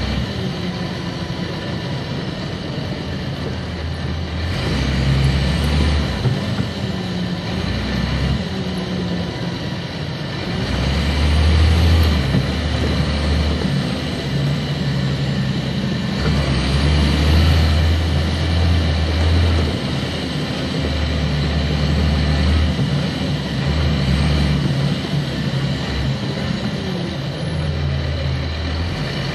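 Cummins ISC diesel engine of a 1999 Nova Bus RTS heard from the back of the bus, pulling hard several times, its note stepping up and down as the ZF automatic gearbox shifts. A high whine rises with each pull and falls away as the power comes off.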